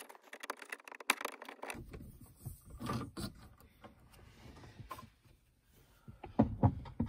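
Phillips screwdriver backing a screw out of a Honda Pilot's overhead map light assembly: scattered light clicks and scrapes of metal on plastic, with a couple of louder knocks near the end.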